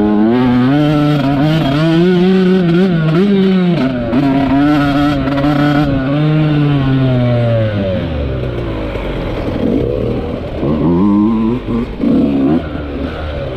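Dirt bike engine running hard under the rider, its pitch wavering up and down with the throttle. The revs drop off about seven seconds in, then rise in short bursts near the end.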